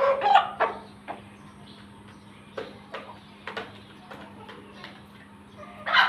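Chickens clucking: a loud call right at the start and another near the end, with short single clucks scattered between, over a steady low hum.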